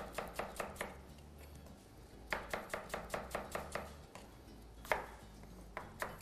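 Kitchen knife slicing peeled apples on a plastic cutting board: quick runs of knocks, about six a second, in three short bursts with pauses between.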